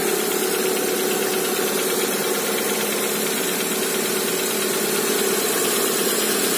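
Lada Granta's 1.6-litre 16-valve VAZ-21127 engine idling steadily on a cold start with a rapid knock from the cylinders, which the owner takes for loose pistons slapping while cold.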